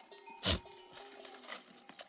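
Livestock bells on a sheep flock ringing with steady tones. A single sharp thump about half a second in is the loudest sound.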